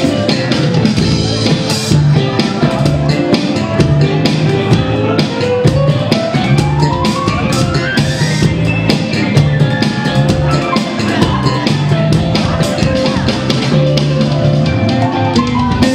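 Live band playing an instrumental passage on drum kit, electric bass, electric guitar and keyboard. About five seconds in, one instrument slides steadily upward in pitch over roughly three seconds.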